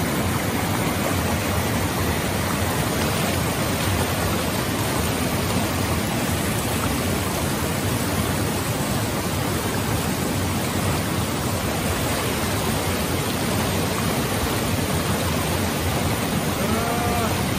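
Small mountain stream rushing over rocks in white-water rapids: a steady, even rush of water.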